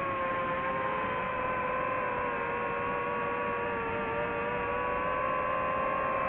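DJI FPV drone's motors and propellers whining steadily in flight, one pitch with its overtone, sagging slightly lower through the middle.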